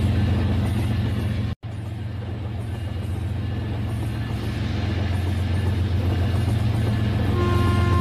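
Battery-powered toy train's motor running with a steady low hum as it rolls along plastic track, growing louder as it approaches. Near the end, a steady held tone begins.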